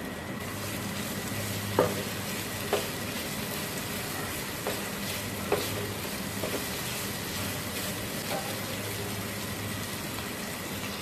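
Grated potato sizzling in oil in a non-stick frying pan, with a spatula tapping and scraping against the pan about half a dozen times as it is spread and turned.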